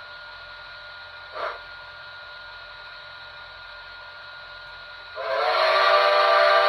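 HO-gauge D51 steam locomotive model running with a steady hum and one short click about one and a half seconds in. About five seconds in, a loud steam-locomotive whistle of several tones sounds together and holds to the end.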